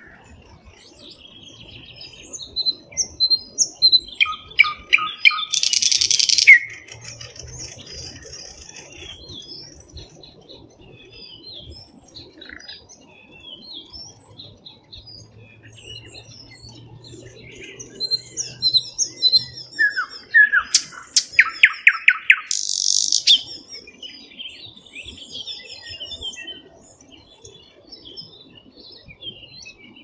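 Thrush nightingale singing two loud song phrases about fifteen seconds apart. Each phrase is a run of rapid repeated whistles and sharp clicking notes that ends in a harsh rattle. Fainter scattered bird song fills the gaps.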